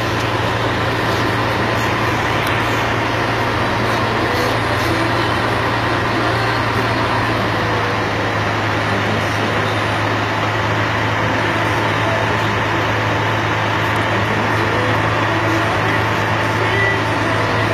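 Vehicle engine running steadily: an even low hum with a hiss over it that does not change, heard from inside a vehicle cab.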